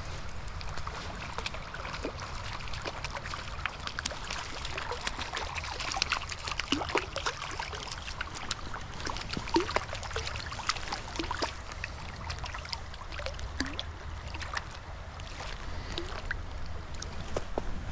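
Creek water running over rocks, trickling steadily with many small irregular plinks and splashes.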